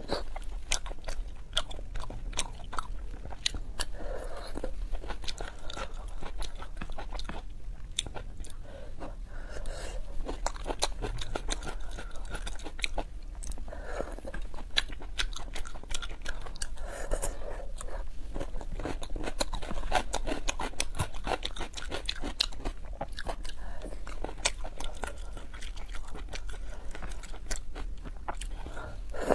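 Close-miked eating sounds: wet chewing and slurping of spicy wide starch noodles, with many sharp mouth clicks and short sucking slurps every few seconds.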